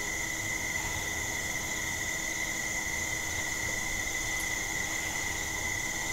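Steady chorus of crickets and other insects: a continuous shrill hum at two pitches, one high and one very high, unchanging throughout.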